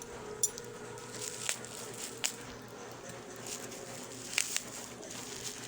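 Packaging and small items being handled during an unboxing: a few light, sharp clicks and taps, with a close pair near the end, over a faint steady background hum.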